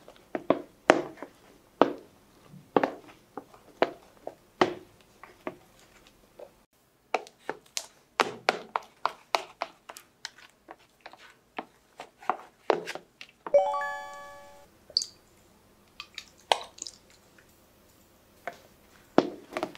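Spatula stirring a thick foamy mixture in a plastic bowl: irregular squishy clicks and taps of the spatula against the bowl, about one or two a second, with a short pause about six seconds in. About two-thirds of the way through there is a brief ringing ping.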